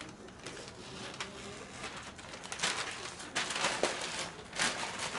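Newspaper masking and tape being peeled off a car window and crumpled up by hand, in a series of rustling, crackling bursts that are loudest in the second half.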